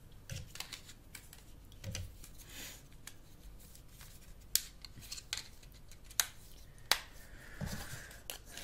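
Hands working a Sony Ericsson K800i mobile phone's plastic parts while fitting the SIM card and battery: light scraping and small clicks, with three sharp snaps in the second half.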